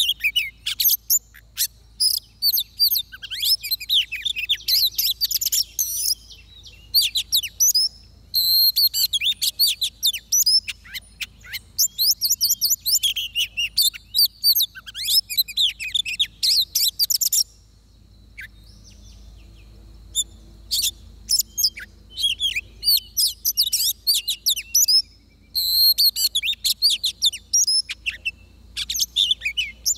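Oriental magpie-robin singing: fast runs of varied, high whistles and chirps in bursts, with a pause of a couple of seconds a little past halfway.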